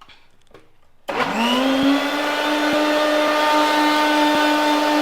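Electric mixer grinder (mixie) switched on about a second in, its motor whine rising quickly and settling into a steady hum as it blends mango, milk and sugar into a milkshake.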